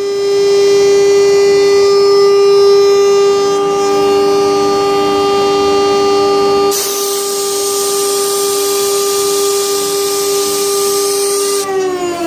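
CNC router spindle running at a steady high speed with a high-pitched whine, joined by a hiss from about seven seconds in. Near the end the whine starts falling steadily in pitch as the spindle winds down.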